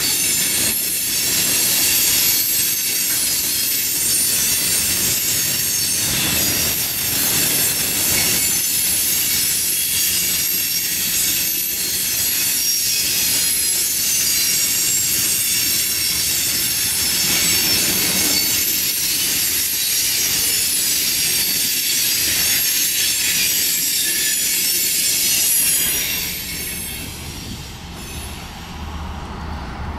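Freight train of loaded coal hopper cars rolling past, its steel wheels squealing in several high steady tones over the rumble and clatter of the wheels. Near the end the train sound falls away, leaving a low steady hum of a vehicle's engine.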